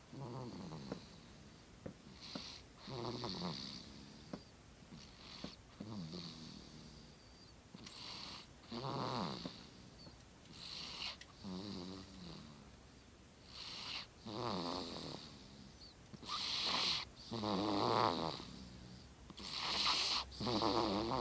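A man snoring: a buzzy, rattling snore with the breaths, one every one to three seconds, growing louder in the second half.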